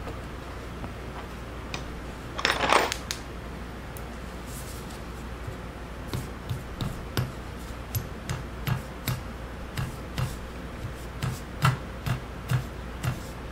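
Light hammer taps, two or three a second from about six seconds in, easing a spool into its bore in a Gresen hydraulic control valve body. A brief rustling clatter of handling comes about two and a half seconds in.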